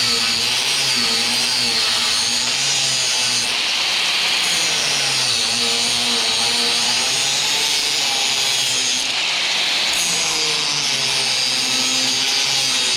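Angle grinder grinding steel, steady and loud, wearing the broken stub of a hinge pin flush with the hinge plate.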